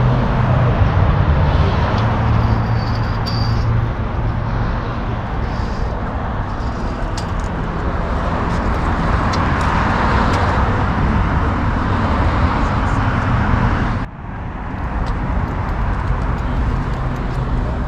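A car engine running with a steady low hum over outdoor noise, cutting off abruptly about fourteen seconds in and then resuming.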